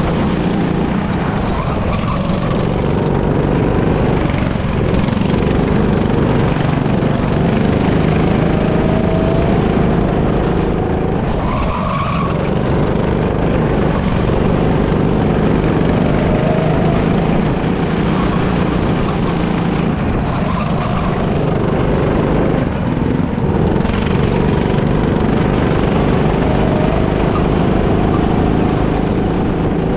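Go-kart engine running hard through laps, heard close from on board the kart, with brief tyre squeals several times as the kart corners.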